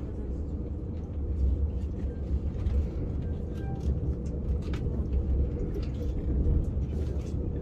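ICE high-speed train running at speed, heard from inside the passenger car: a steady low rumble with a faint constant hum.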